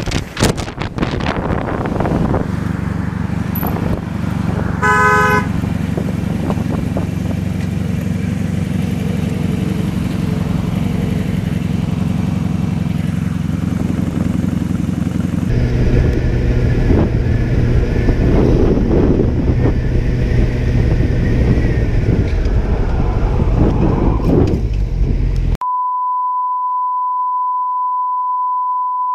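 Motorcycle engine running in traffic, with a short vehicle horn honk about five seconds in. Near the end all of it gives way to a single steady high beep tone.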